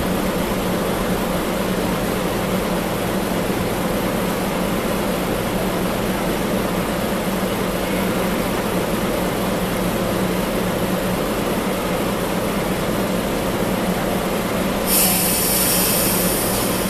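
DE11 diesel locomotive running with a steady engine drone while shunting tank cars. A sudden high hiss starts near the end.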